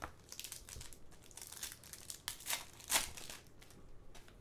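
2013-14 Panini Contenders hockey cards being flipped and slid one past another in the hand: a run of irregular, papery crinkling rustles, the loudest about three seconds in.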